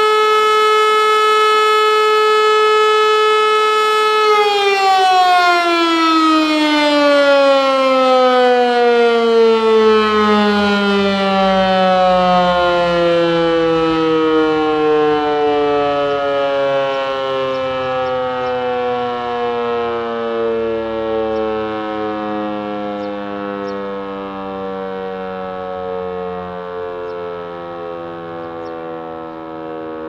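Helin L141 rotary civil-defence siren, built 1942, holding a steady high tone. About four seconds in, its pitch begins to fall and keeps sliding slowly lower as the rotor winds down, the sound fading gradually but still going at the end.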